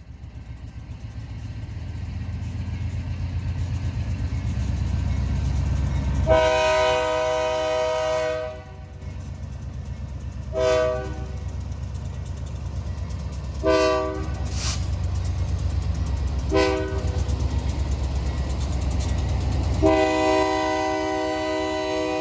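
Approaching BNSF diesel freight train: the locomotive's rumble builds steadily while its air horn sounds one long blast, three short ones spaced a few seconds apart, then another long blast that begins near the end.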